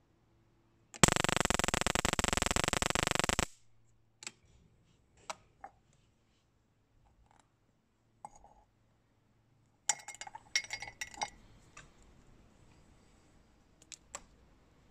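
Spark gap fed by a ZVS driver, flyback transformer and one microwave-oven capacitor, firing a rapid, harsh train of sparks for about two and a half seconds, starting about a second in and cutting off suddenly. Later come scattered clicks and a cluster of clicks and clinks as crocodile clips and a ceramic mug are handled.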